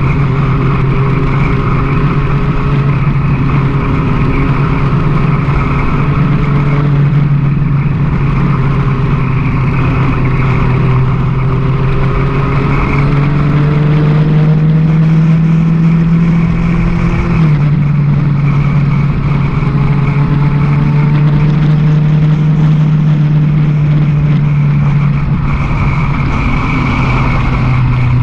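Sport motorcycle's engine running at cruising speed, with wind rushing over the microphone. The engine note climbs slowly for a few seconds and then drops suddenly just over halfway through, as on a gear change, before holding steady again.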